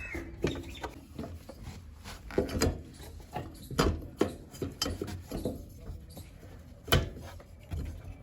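Irregular clinks, knocks and scrapes of tools and metal parts being handled, with one sharper knock about seven seconds in.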